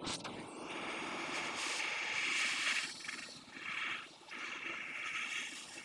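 Hot air rework station blowing a steady hiss of air while reflowing a chip back onto a PS5 circuit board, the hiss dipping briefly twice.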